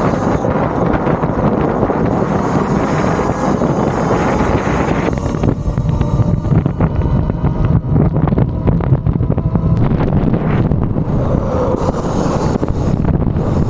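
Wind buffeting the camera microphone while riding a Talaria Sting MX4 electric dirt bike at road speed: a steady, loud rumble.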